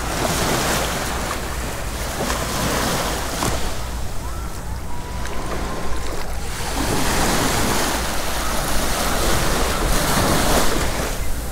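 Sea waves washing onto a beach in two long swells, one near the start and a longer one in the second half, with wind rumbling on the microphone.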